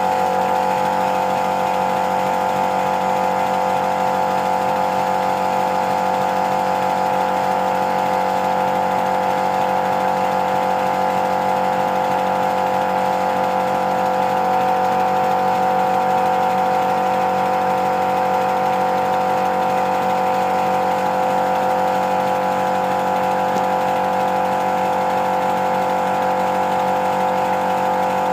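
Polly Trojan 5-inch gauge model locomotive running fast on compressed air, its wheels and motion spinning freely on a stand. It makes a steady, even mechanical running sound with a constant hum.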